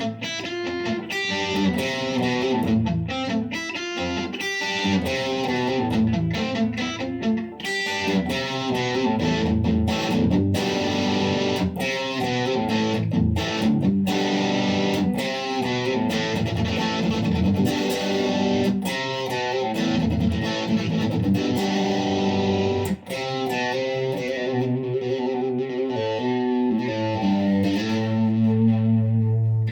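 Electric guitar through a Lollar High Wind Imperial bridge humbucker, played through a Blackstar ID:Core 40 V2 amp on its crunch channel with gain high and light reverb: picked notes and chords with moderate distortion, ending on a held low chord.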